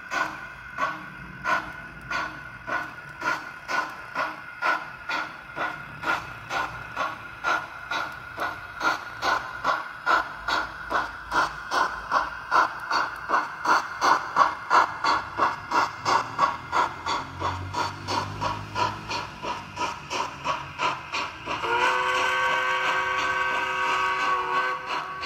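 Sound decoder of a Roco H0 model DB class 10 steam locomotive: steady steam chuffs that quicken and grow louder as it passes. Near the end it sounds a chime whistle of several held notes for about three seconds.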